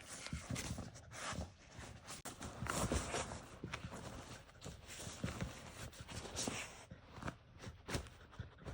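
A dog nosing and pawing through a folded picnic blanket to get at treats hidden in its layers: irregular rustling and scuffing of the fabric, with short knocks scattered through.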